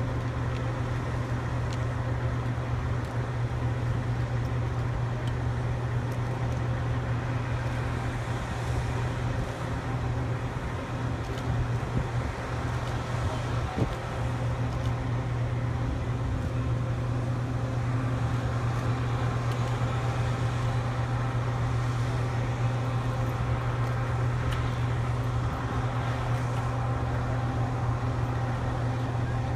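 Steady low engine drone with an even hum, unchanged throughout.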